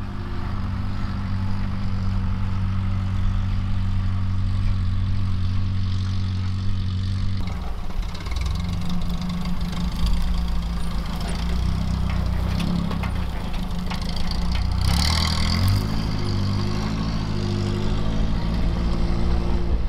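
Toyota pickup's engine running: a steady hum at first, then, after an abrupt change about a third of the way through, a note that rises and falls with the throttle. A brief hiss comes in about three quarters of the way through.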